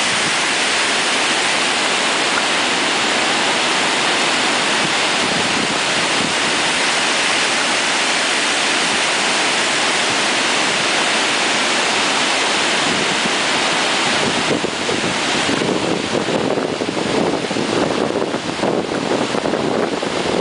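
Water spilling over the overflow spillway of a concrete gravity dam during a release, a loud, steady rushing. From about fourteen seconds in, wind buffets the microphone and adds an uneven, gusty low rumble.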